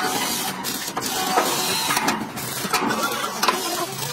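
Stick (arc) welding on steel, a continuous crackling sizzle, with several sharp hammer strikes on the metal.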